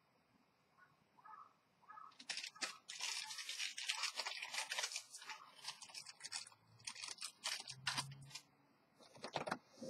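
Irregular rustling and crackling, a dense run of small clicks that starts about two seconds in, is busiest around three to five seconds, and thins out toward the end.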